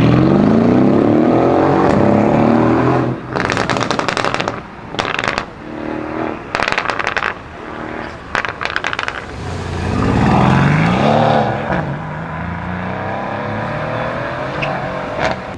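Mercedes-Benz CLS63 AMG's twin-turbo V8, tuned to 700 hp, accelerating hard with its engine note rising for about three seconds. It then lifts off and the exhaust crackles and pops in four bursts, and the revs rise and fall once more before the engine runs steadily.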